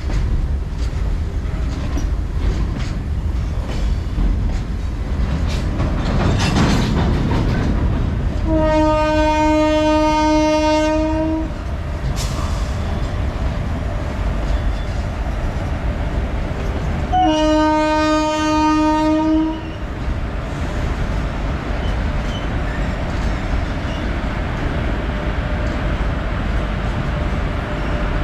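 Indian Railways WAG-12 electric freight locomotive and its goods wagons rolling slowly past with a steady rumble. The locomotive's horn sounds two long, steady blasts about nine seconds apart, each lasting two to three seconds.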